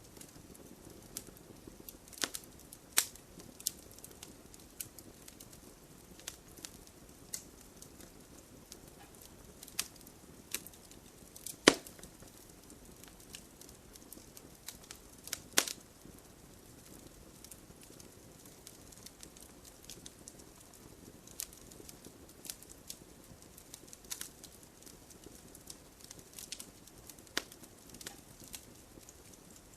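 Campfire crackling and popping: irregular sharp pops over a faint steady hiss, the loudest pop about twelve seconds in and another strong one a few seconds later.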